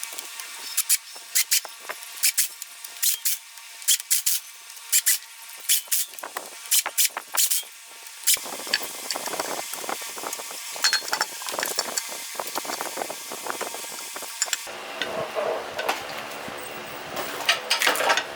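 Repeated sharp clicks and clinks of hard objects, many of them in the first half. They give way to a steadier scraping, rustling noise with further clicks.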